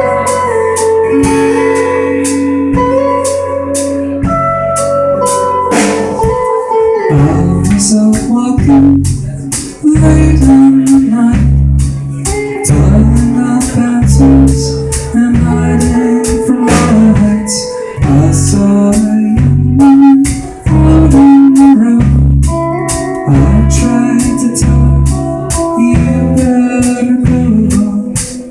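Live indie rock band playing, with electric and acoustic guitars over drums. The song builds about six seconds in to a fuller, louder part with a heavy, pulsing low end.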